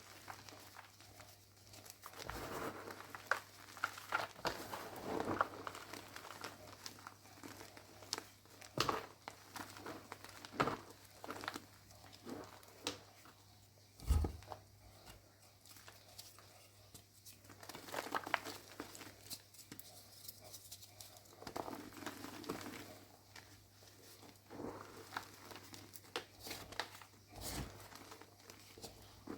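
Crunchy reformed (pasted) gym chalk blocks being crushed and crumbled, a continuous run of irregular crunches and crackles. A heavier thump comes about halfway through.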